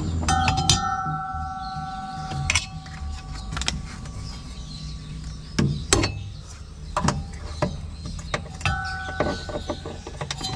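Scattered clicks and knocks of hand tools working on washing-machine parts, with a steady ringing tone heard twice, near the start and again near the end.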